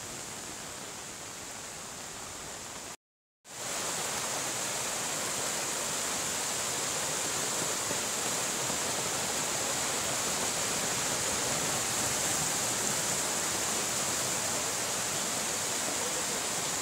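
Muddy floodwater rushing and churning in a swollen stream, a steady loud noise of white water. It cuts out for a moment about three seconds in, then returns a little louder.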